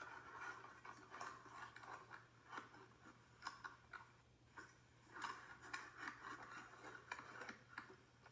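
Faint, irregular tapping and clicking of fingers on a smartphone touchscreen while typing and scrolling, a few taps a second.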